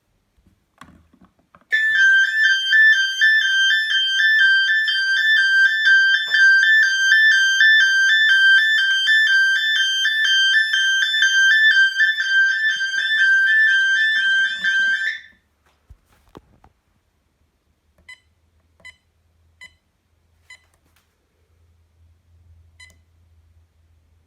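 Electronic two-tone siren of a 1980s burglar alarm system sounding, switching rapidly back and forth between two high pitches for about thirteen seconds, then cutting off abruptly. It is followed by a few short, faint electronic beeps.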